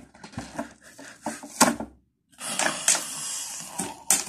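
Barbie Fashionista doll box being opened: sharp clicks and crackles of the clear plastic window and cardboard, then about a second and a half of steady rasping as the plastic tray slides out, ending in a sharp snap.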